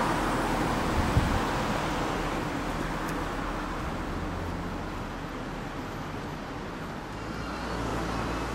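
City street traffic noise: a steady wash of passing cars, louder near the start and swelling again near the end, with a couple of brief low knocks about a second in.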